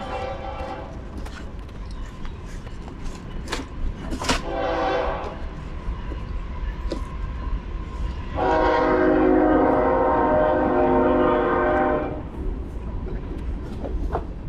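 Horn-like blasts of a steady held chord: a short one about four seconds in, then a loud one lasting about three and a half seconds. Scattered sharp clicks and clatter are heard over a steady low rumble.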